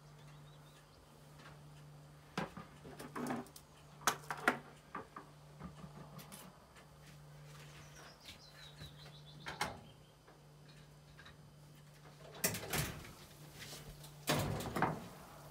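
Off-camera kitchen handling: several knocks and clatters of things being picked up and set down, a faint descending chirp midway, and two longer scraping or sliding noises near the end, over a low steady hum.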